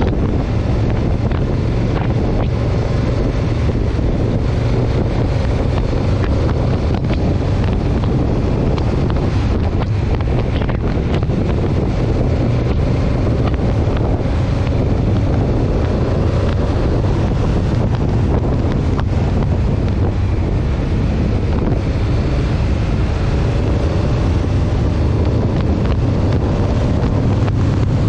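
Wind buffeting the microphone of a handlebar-mounted camera at riding speed, over a steady low drone.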